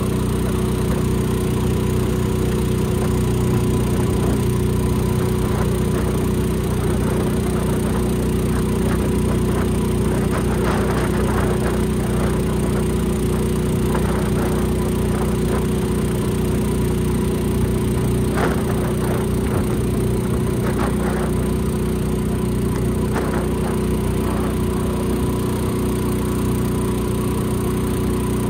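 Small outboard motor running at a steady speed, pushing an aluminium jon boat along. Light knocks and rattles come through it now and then in the middle.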